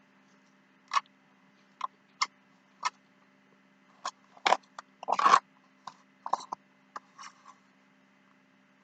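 A person eating: scattered short crunches and mouth clicks of chewing, coming irregularly, with a louder burst of crunching about halfway through.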